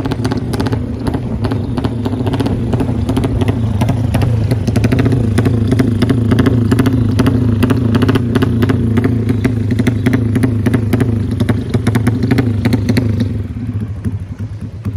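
Tuned racing motorcycle engine running at a steady speed, its exhaust note holding roughly level. The sound drops off sharply near the end.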